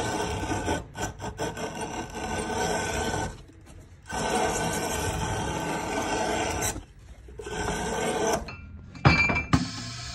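Cobbler's edge-trimming machine running and cutting away the excess leather of a newly glued sole around a boot's welt, in three spells with short pauses between. Two sharp knocks near the end.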